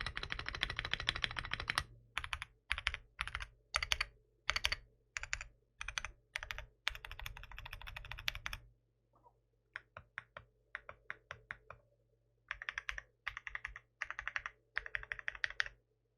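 Typing on a 75% aluminium-cased mechanical keyboard: a fast run of keystrokes, then short bursts of clacking strokes with brief pauses between them, a few single keystrokes around the middle, and more bursts before the typing stops just before the end.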